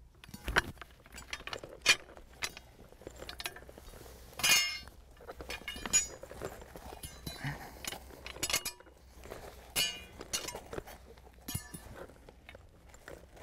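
Painted metal dome struts clinking and knocking together as they are laid down on the ground, in an irregular run of sharp clinks, the loudest about four and a half seconds in.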